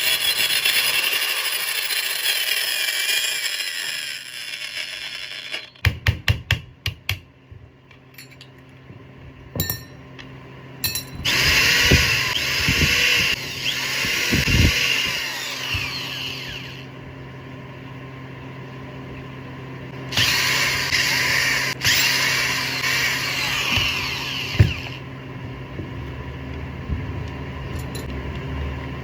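801 angle grinder with a gear problem running in three spells of several seconds each, a high-pitched motor whine. A quick series of knocks comes between the first two runs, and a sharp click comes at the end of the last one.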